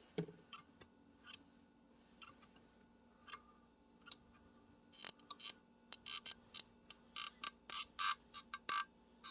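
Pliers clicking and ticking against the metal parts of a 1978 Quadrajet carburetor as a tensioned piece is wiggled. A few scattered clicks, then a quick run of clicks from about halfway.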